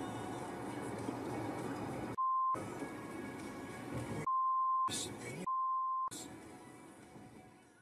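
Three censor bleeps, each a single steady beep tone about half a second long, coming about two, four and five and a half seconds in, with all other sound cut out while each one sounds. Between them runs a steady noisy background that fades away near the end.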